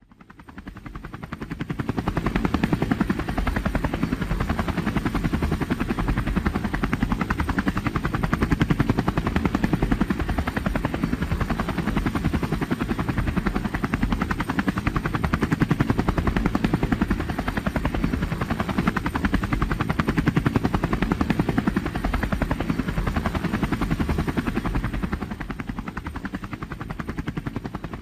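Helicopter in flight, its rotor blades beating in a fast, steady rhythm. It fades in over the first two seconds and drops a little near the end.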